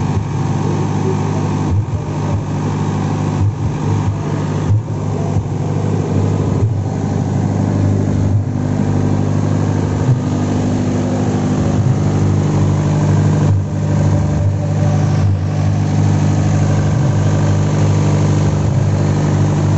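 Open-frame generator set's engine running steadily at constant speed, a low, even drone.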